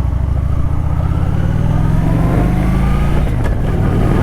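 Motorcycle engine pulling away and accelerating, its pitch rising steadily, with a short break about three seconds in.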